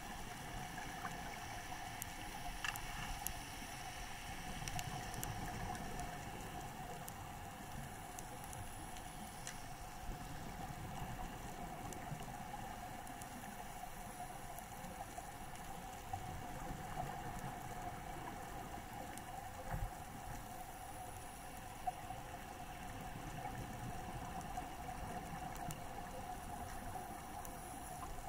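Underwater ambience picked up by a submerged camera: a steady hum over a constant wash of water noise, with a few faint scattered clicks.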